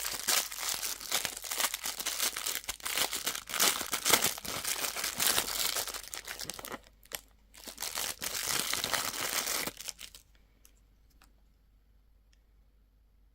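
Crinkly candy or toy packaging wrapper being crumpled and torn open, a dense crinkling that pauses briefly about seven seconds in and stops at about ten seconds, followed by a few faint ticks.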